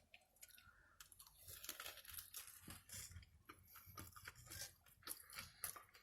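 Faint, close-miked chewing of crunchy food, with irregular crunches from about a second in.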